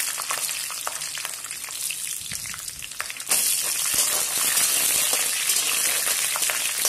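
Whole shallots sizzling in hot coconut oil in a wok, with a metal spatula clicking and scraping as they are stirred. The sizzle gets louder about halfway through.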